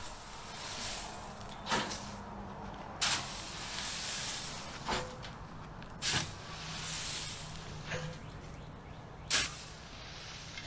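Shovel digging into a pile of dry, decomposed oak leaves and compost, with rustling, crunching scoops and about six sharp knocks spaced a second or two apart as the blade strikes.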